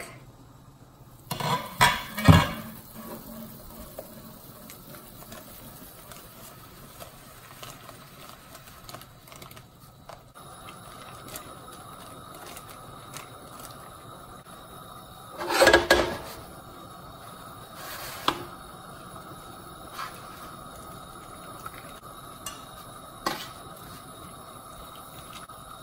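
A white plastic spoon stirring noodles into a pot of boiling broth and scraping them off a metal baking sheet, with clattering knocks against the pot and sheet, loudest about two seconds in and again a little past the middle, and single lighter knocks later on.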